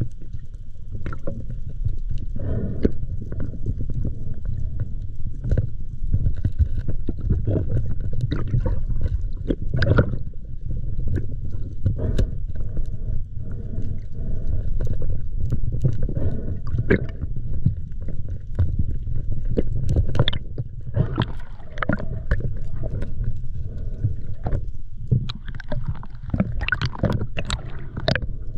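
Muffled underwater rumble and gurgling of water moving past a waterproofed action camera, with scattered sharp clicks and knocks throughout.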